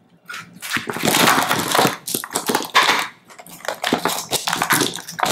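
Hard candies crackling and snapping loose as a candy mold tray is twisted and flexed to pop them out, a dense run of clicks that starts a fraction of a second in and keeps going.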